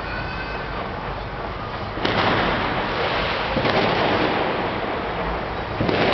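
Fireworks going off: a sudden loud burst of bangs and crackle about two seconds in, another at about three and a half seconds, and a third near the end, each rumbling on as it fades.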